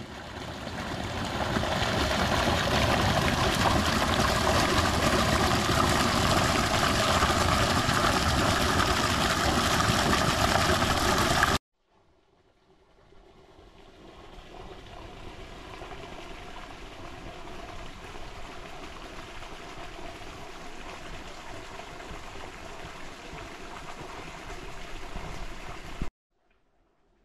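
A machine running steadily, in two stretches: a loud one that cuts off suddenly just under halfway, then a quieter one that swells in and cuts off near the end.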